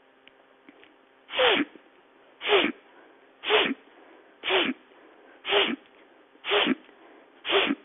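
A woman's sharp, forced breaths in through the nose, seven in a row at an even pace of about one a second, during a breathing exercise of strong nasal inhalation and passive exhalation through the mouth.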